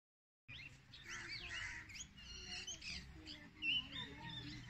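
Many small birds chirping and twittering at once, short high calls overlapping; the sound cuts in abruptly about half a second in.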